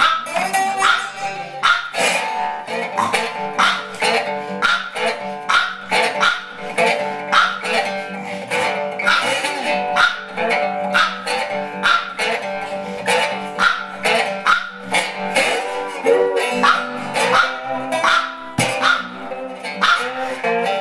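Slide blues played on a metal-bodied resonator guitar, picked notes gliding under a glass slide, with a hungry dog barking along.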